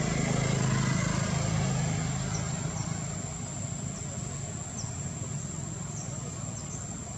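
Low engine rumble of a nearby motor vehicle, loudest at first and fading over the first few seconds, under a steady high-pitched whine and a few faint short chirps.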